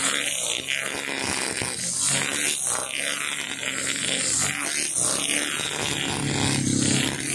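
Husqvarna 542RBS backpack brush cutter's two-stroke engine running at cutting speed, its nylon line head whipping through grass. The sound swells and fades about once a second as the head is swept back and forth.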